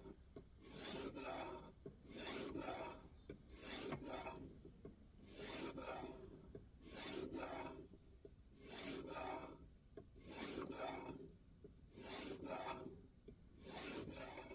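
An N690 steel knife edge drawn across a 2000-grit sharpening stone on a guided sharpening system: steady, even scraping strokes, about one every second and a half.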